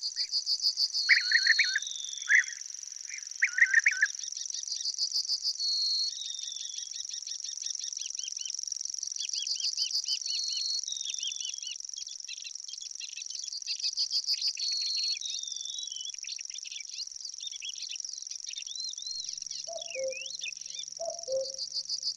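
Wild birds singing over a steady, high insect drone. A songbird repeats the same phrase, ending in a falling slide, about every four and a half seconds, with a few loud chirps in the first four seconds and three short, low calls near the end.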